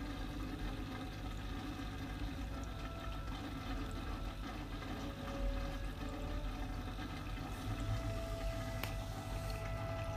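Steady rushing and trickling of circulating water with a low hum from a reef aquarium's pumps. A single sharp click comes near the end.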